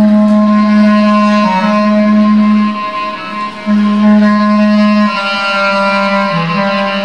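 Bass clarinet playing long, held low notes, with other held tones sounding above them at the same time. The low note breaks off for under a second near the middle, then returns and steps down in pitch near the end.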